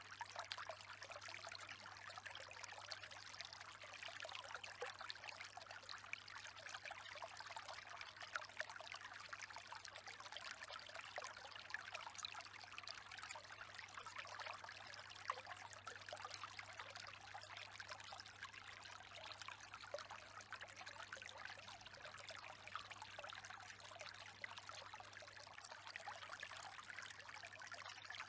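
Faint, steady sound of running water, like a trickling stream, over a low steady hum.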